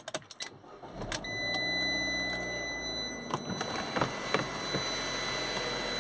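A Fiat 500C's engine starts about a second in; its revs flare and then fall over the next two seconds to a steady idle. A steady high electronic tone sounds alongside, and there are a few sharp clicks.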